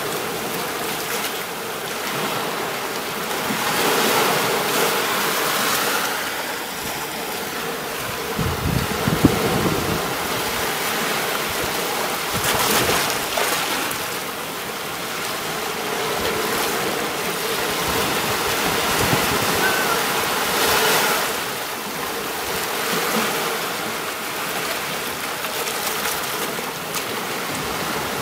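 Sea waves washing onto a beach: a continuous rush of surf that swells and eases every few seconds, with one deeper, stronger surge about a third of the way in.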